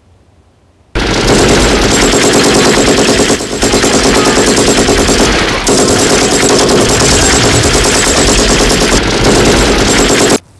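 Long burst of automatic submachine-gun fire, a dense rapid stream of shots that starts suddenly about a second in and cuts off abruptly near the end.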